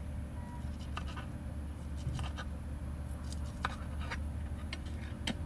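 Serrated knife sawing through a rolled tortilla and knocking down onto a plastic cutting board: a dozen or so short scratches and clicks, spread unevenly, over a steady low hum.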